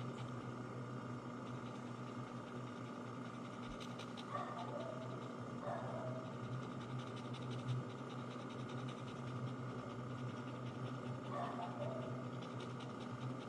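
Bichon frise dog panting steadily over a constant low electrical hum, with three brief high-pitched sounds: one about four seconds in, one near six seconds, and one near the end.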